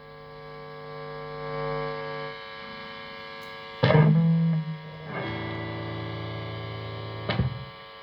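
Electric guitar played through a Marshall DSL1HR valve amp head on its high-gain Ultra channel with the gain on max: heavily distorted chords ringing out, with fresh strums about four, five and seven seconds in.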